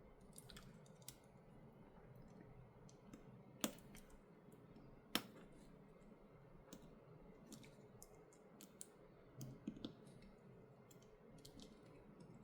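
Faint small clicks and taps of phone flex-cable connectors and parts being handled and pressed onto a smartphone's motherboard during reassembly, with two sharper clicks a second and a half apart near the middle.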